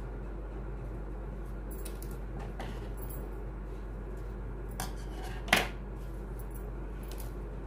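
Faint clicks and one sharp clack about five and a half seconds in, as hard craft pieces are handled, over a steady low hum.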